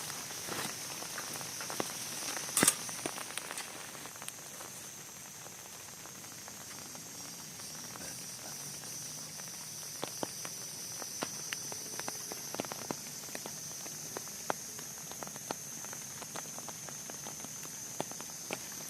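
Rain falling around a camp: a steady high hiss with scattered drops tapping, and one sharper, louder knock about two and a half seconds in.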